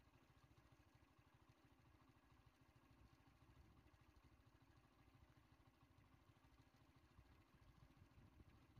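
Near silence, with only a faint, steady low rumble.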